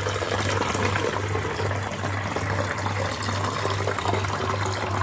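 Homemade lime-salt candy wine poured in a thin, steady stream into a clear plastic bottle, splashing into the liquid as the bottle fills.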